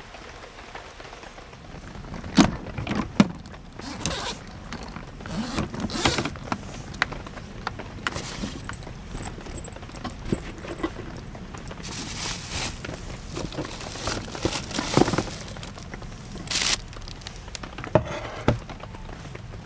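Camping gear being handled and packed into a soft-sided storage box: scattered knocks and thuds with rustling and scraping, and a few longer rasping strokes later on.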